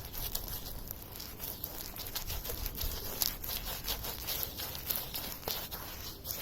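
Paintbrush slapping thick, sticky blacking onto a narrowboat's steel hull: a thick, gloopy sound of irregular short wet clicks and smacks as the brush strokes on.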